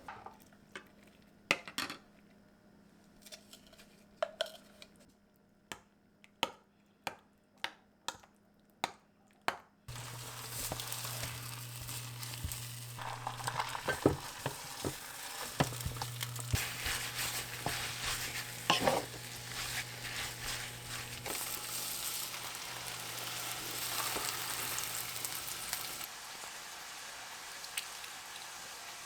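A run of sharp knocks, coming about twice a second near the end. About ten seconds in, food starts sizzling in a frying pan, with a steady low hum and the clink of a utensil stirring.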